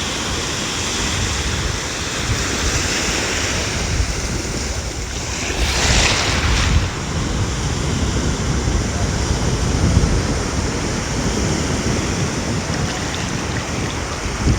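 Ocean surf washing steadily onto a beach, with a louder surge of breaking water about six seconds in. Wind buffets the microphone with a gusty low rumble.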